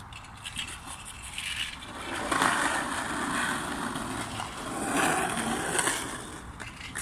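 Skateboard wheels rolling over rough concrete: a rolling noise that comes in about two seconds in, swells as the board passes close, and fades near the end.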